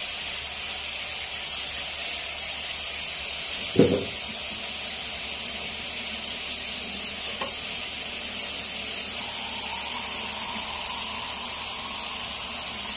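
Tulingan fish heads sizzling steadily in hot oil in a pot as they are sautéed, with a single clank of metal about four seconds in.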